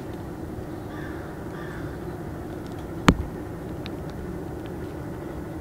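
Quiet outdoor ambience: a steady low hum with faint bird calls, and one sharp click about three seconds in.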